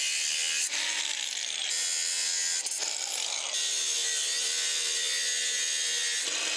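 Cordless angle grinder cutting off the excess length of a steel leaf-spring U-bolt: a steady, harsh metal grind, with its high whine falling in pitch twice.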